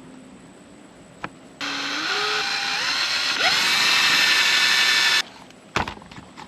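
Electric drill running for about three and a half seconds, its motor pitch climbing in steps as it speeds up, drilling holes through neoprene gasket sheet. A short knock follows near the end.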